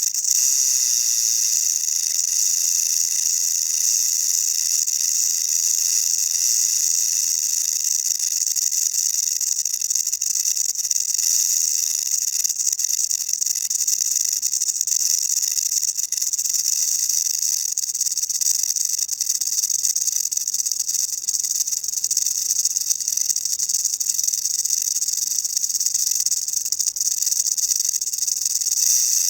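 South American rattlesnake (Crotalus durissus) shaking its tail rattle in a continuous high-pitched buzz, the warning of an agitated snake.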